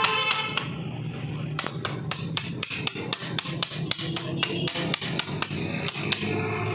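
A hammer rapidly tapping a steel punch held on the pivot pin of a Toyota Hilux Revo drum brake shoe's parking-brake lever, which is clamped in a vise. The taps are sharp metallic clicks, about four to five a second, with a short lull about a second in.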